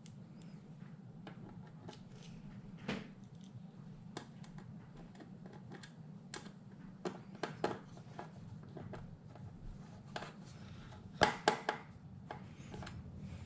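Scattered small clicks and taps of plastic and metal computer parts being handled and fitted back together, with a quick cluster of sharper clicks about eleven seconds in. A steady low hum runs underneath.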